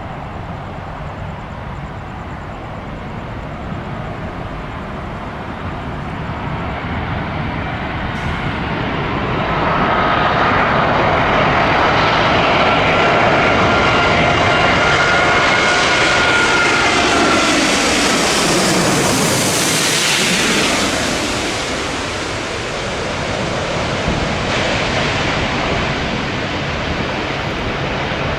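Jet airliner passing low overhead on approach. The engine noise swells over several seconds to a loud peak, with a high whine that drops slightly in pitch as it goes by, then eases off.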